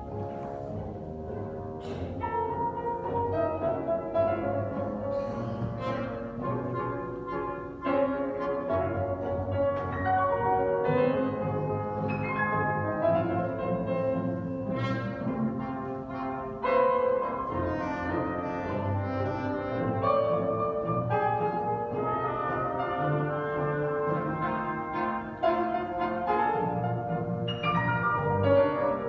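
Live symphony orchestra playing a piano concerto, the music continuous and growing louder at times, with sudden surges about eight seconds in and again past sixteen seconds.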